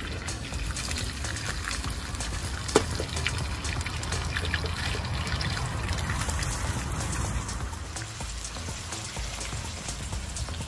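Lamb sizzling and spitting in hot oil in a camping frying pan, a dense, steady crackle. One sharp click about three seconds in.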